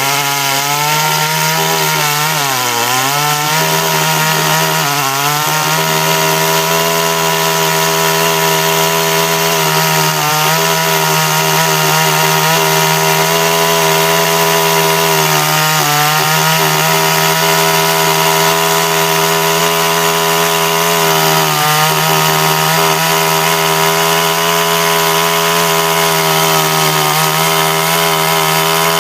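Titan 45cc two-stroke chainsaw running at high revs while cutting wood, the engine note dipping briefly under load and recovering several times.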